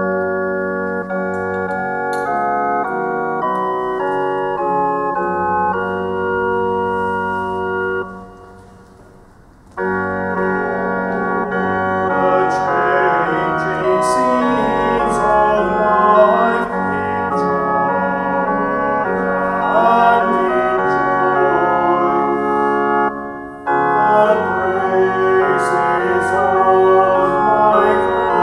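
Church organ playing: slow held chords, a short break about eight seconds in, then fuller, more moving music with a brief gap near the end.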